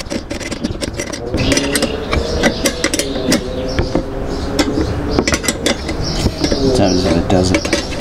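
A combination wrench clicking and clinking against the nuts and steel U-bolt pipe clamp as the nuts are tightened in short strokes. It makes a quick, irregular series of metallic clicks.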